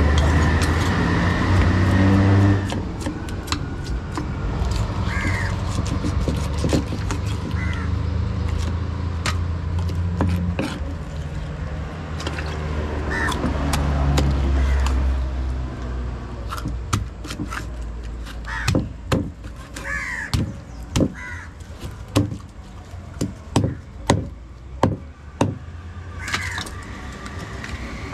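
Crows cawing now and then, over a low vehicle-engine rumble in the first half. In the second half comes a quick series of sharp chops as a heavy knife cuts through fish on a wooden chopping block.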